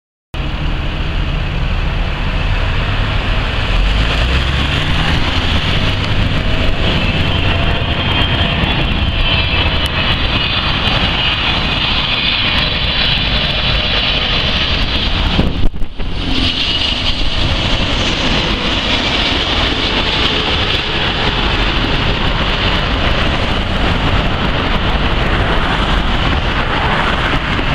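Boeing 777-300ER's GE90 turbofan engines on landing approach: a steady jet roar with a low rumble underneath and a wavering high fan whine. About sixteen seconds in there is a brief break in the sound followed by a knock.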